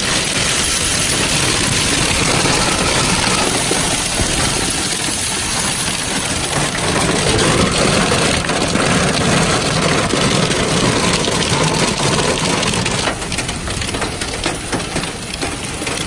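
Heavy hailstorm: hailstones and rain pouring down onto asphalt make a loud, dense, steady hiss. In the last few seconds, many separate sharp ticks stand out as hailstones strike the car close by.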